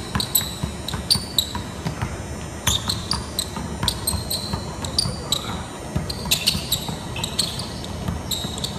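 Basketball dribbled quickly and hard on a hardwood gym floor, with sneaker soles giving repeated short, high squeaks as the player cuts back and forth.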